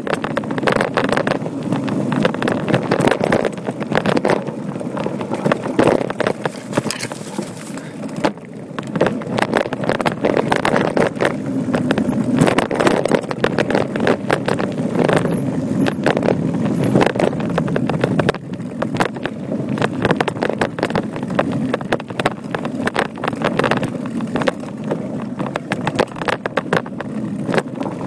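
Voodoo Bizango hardtail mountain bike riding a rough dirt singletrack: a steady rush of tyre and wind noise, with constant rattles and knocks as the bike bounces over the trail.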